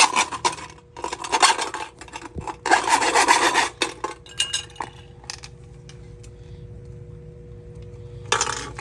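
Thin metal of a spray paint can scraping and crunching as it is forced open, in three dense bursts with scattered clicks, stopping after about five seconds and leaving only a faint steady hum.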